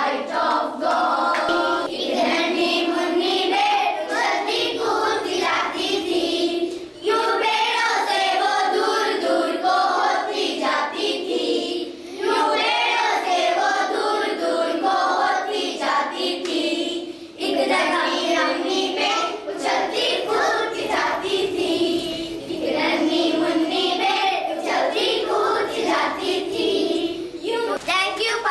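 A group of children singing together, a Sunday school song sung in phrases with short breaks about 7, 12 and 17 seconds in.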